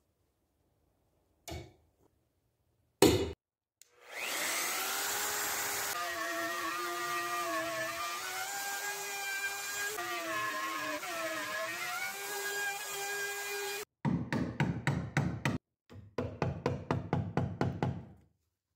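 Two wooden knocks as guide boards are set down, then an electric router spins up and cuts a groove in the melamine bench top for about ten seconds, its whine dipping in pitch as it loads, and stops suddenly. Then a hammer taps a chisel rapidly in two quick runs.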